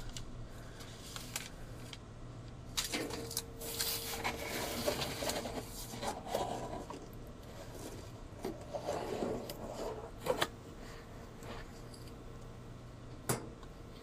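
Cardboard box flaps and paper packing rustling and scraping as a metal replacement timer is unpacked by hand, with a few sharp knocks, the loudest about 10 and 13 seconds in.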